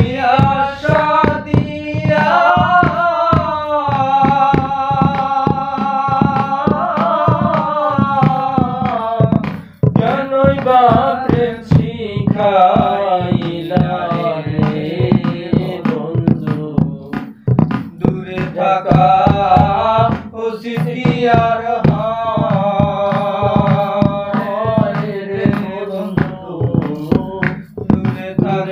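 Men singing a Bengali folk song over a steady percussion beat, the melody pausing briefly twice.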